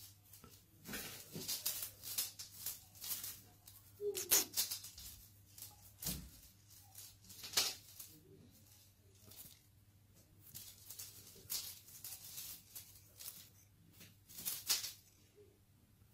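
Irregular short rustling and rattling sounds, coming in little clusters, with a dull thump about six seconds in and a faint steady hum underneath.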